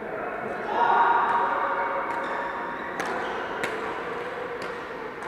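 Badminton rackets striking shuttlecocks: several sharp hits spaced about a second apart, from rallies on more than one court in a large hall, over a background of players' voices.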